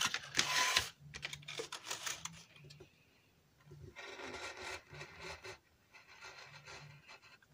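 Thin cardboard carton being handled and rustled on a wooden table, then, from about four seconds in, a pointed tool scratching over the printed paperboard in short strokes.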